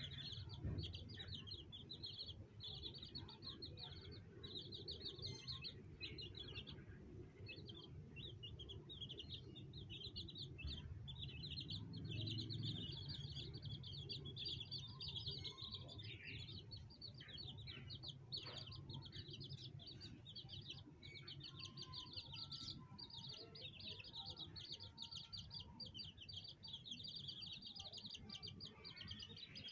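Baby chicks peeping: a steady stream of rapid, high-pitched peeps that overlap and pause only briefly now and then, over a faint low background hum.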